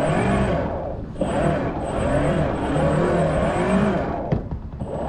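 Radio-controlled model boat's motor revving up and down, its pitch rising and falling, easing off briefly about a second in and again near the end.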